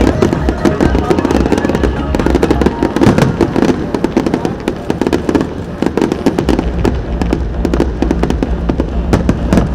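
Aerial fireworks bursting and crackling in quick succession, many sharp bangs close together, with music playing alongside. A steady deep bass comes in about two-thirds of the way through.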